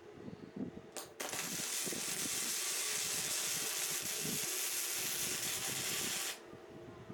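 Electric arc welding: a sharp click as the arc strikes, then about five seconds of steady, high crackling hiss of a weld bead being run on scrap iron, cutting off suddenly when the arc is broken.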